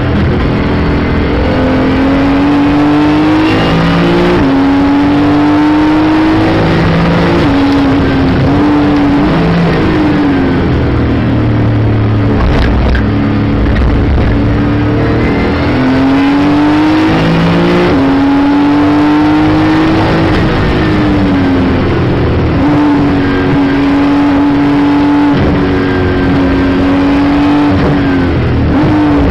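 Porsche 911 GT2 RS Clubsport's twin-turbo flat-six at racing pace, revving up through the gears with quick breaks at each upshift and falling back when lifting and downshifting for corners, several times over.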